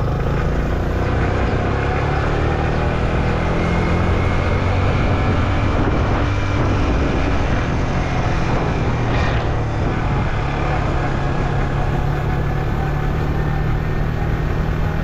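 Yamaha M-Slaz motorcycle's single-cylinder engine running at a steady speed while riding, under a constant rush of wind and road noise.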